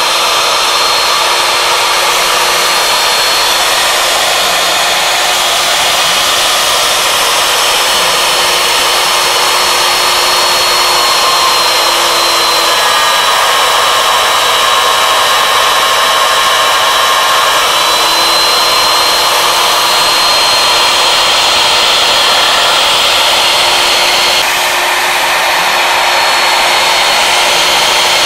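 Router spindle on a CNC machine running at high speed, its end mill cutting through wood: a steady high whine over the noise of the cut. The whine's pitch sags a little for several seconds midway and comes back up, and the sound changes abruptly about 24 seconds in.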